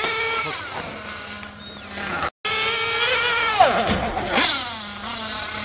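Radio-controlled car's motor whining, its pitch rising and falling with the throttle. A brief break in the sound comes about two seconds in, and then the whine sweeps steeply down in pitch as the car speeds past.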